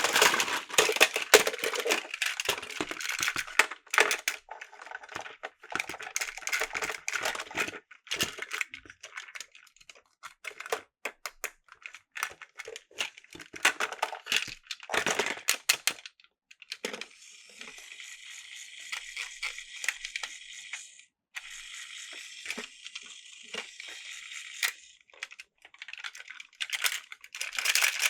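Plastic toy parts being handled, with dense clicking and crinkling. In the second half come two steady high whirring stretches of about four seconds each, with a brief break between them.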